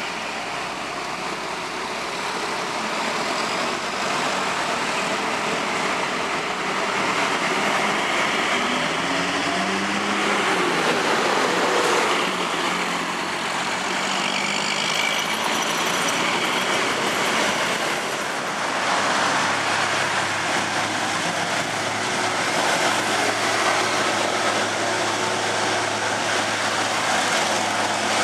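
Heavy road vehicles, buses and trucks, passing on a hill climb with their engines working under load over steady traffic noise; one engine's note rises about ten seconds in.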